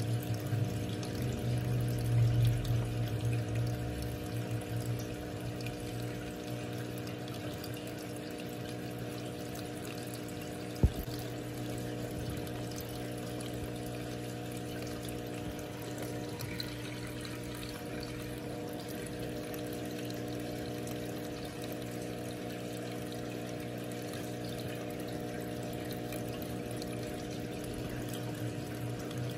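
Aquarium filter running: a steady trickle and splash of water over a constant motor hum. One sharp click about eleven seconds in.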